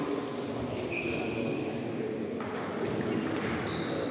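Table tennis balls pinging as they bounce, a few short separate pings over the steady murmur of a busy hall.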